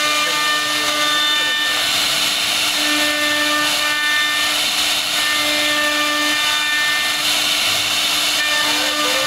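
CNC router spindle running with its bit carving a relief pattern into a wooden board: a steady cutting hiss with high whining tones that come and go as the cut goes on.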